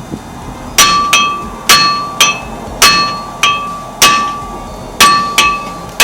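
Hammer blows on a rusted-on front brake rotor, about ten sharp strikes starting about a second in, often in quick pairs. Each strike leaves the rotor ringing with a bell-like metallic tone. The hammering is meant to free a rotor stuck to the hub by rust.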